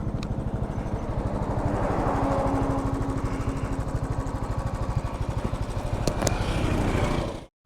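Motorcycle engine running under way, its exhaust pulsing in an even beat, with two brief clicks about six seconds in. The sound cuts off suddenly just before the end.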